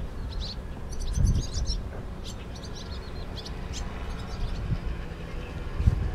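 Swallows twittering as a flock flies past, with many short, high chirps scattered throughout. Under them runs a low rumble that swells about a second in and again near the end.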